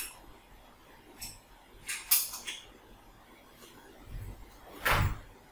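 Scattered metal clicks and clinks of a hex tool working the bolts that join a brush cutter's shaft to its engine, with a quick run of sharp clicks about two seconds in and a duller knock near the end.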